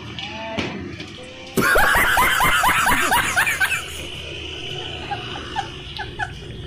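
A sudden loud burst of rapid 'ha-ha-ha' laughter about one and a half seconds in, lasting about two seconds and stopping abruptly, then softer short chirps of laughter; it sounds like a laugh sound effect added in editing.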